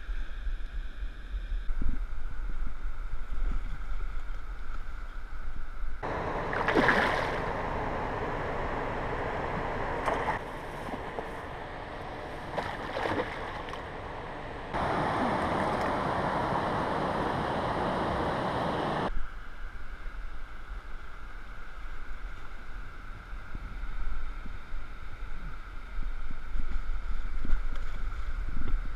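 Hooked pike thrashing and splashing at the water's surface close to the bank, with wind rumbling on the microphone. The sound changes abruptly several times, growing louder and harsher between about 6 and 19 seconds.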